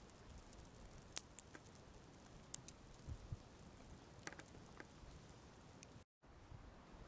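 Small fire of dry sticks crackling faintly, with scattered sharp pops.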